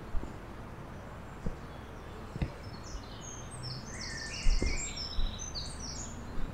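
A small songbird singing a quick run of short high notes, starting about halfway through, over a steady outdoor hiss. A few brief low thumps come through as well, the loudest about two-thirds of the way in.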